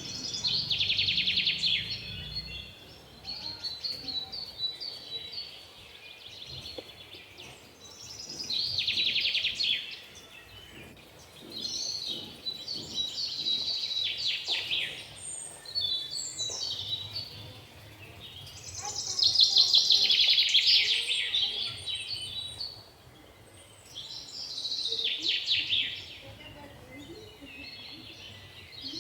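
Small birds chirping in bursts of rapid high notes, a burst of two to four seconds every few seconds.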